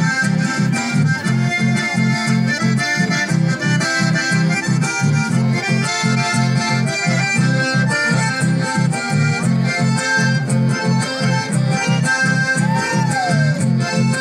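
Live dance music played through loudspeakers: an accordion leading over guitar and a steady bass beat.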